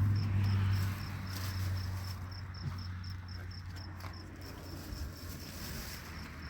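A cricket chirping in an even rhythm, about two or three chirps a second, over a low steady hum that fades during the first couple of seconds.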